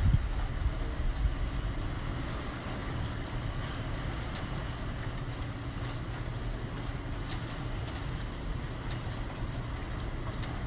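Typhoon wind rushing over a building: a steady low rumble, like a ten-wheel truck running on the roof, with a stronger gust right at the start and faint clicks here and there.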